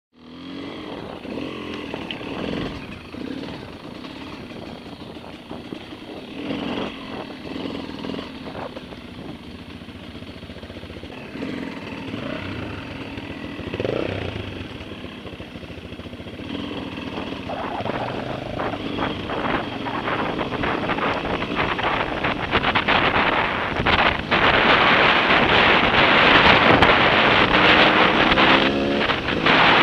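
Dirt bike engine running at low speed on a rough trail, picked up by a helmet-mounted camera. From about 18 seconds in, wind rush on the microphone builds and becomes the loudest sound as the bike picks up speed, with the engine revving higher near the end.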